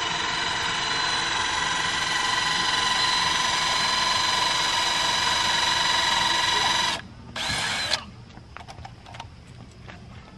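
A small motor running with a steady whine, cutting off abruptly about seven seconds in, then a brief second burst.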